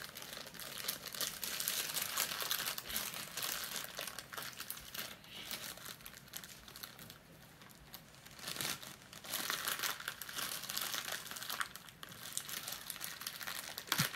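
Crinkling of a shiny foil blind-bag pouch being worked open by hand, in spells that ease off around the middle and pick up again.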